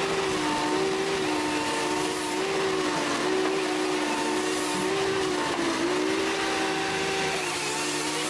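A machine's motor running steadily under load, its drone wavering slightly up and down in pitch.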